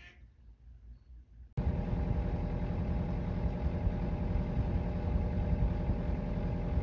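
Faint quiet at first, then about a second and a half in a sailboat's auxiliary engine cuts in, running steadily as the boat motors out of the harbor.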